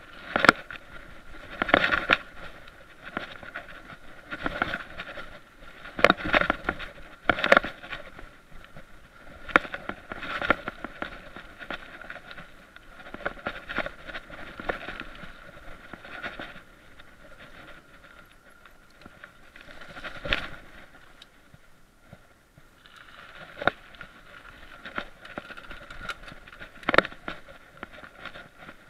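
Mountain bike rolling fast over a rough dirt trail, its frame and parts rattling and clattering, with sharp irregular knocks over bumps. The clatter eases for a few seconds past the middle, then picks up again.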